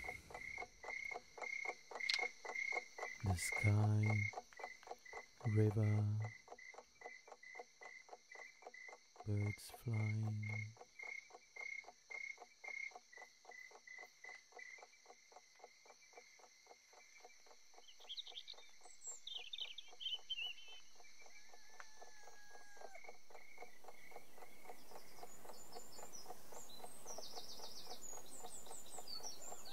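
Night ambience of crickets chirping in a steady pulse of about four chirps a second, with three deep, low calls in the first ten seconds. From about two-thirds through, birds begin chirping as the crickets fade, and a soft hiss slowly rises.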